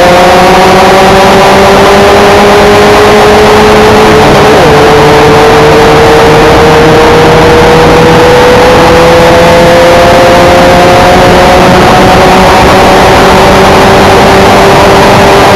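Formula 1600 race car engine pulling hard under load, its pitch climbing slowly and steadily with a brief hitch about four and a half seconds in, over a steady rush of noise. It is loud.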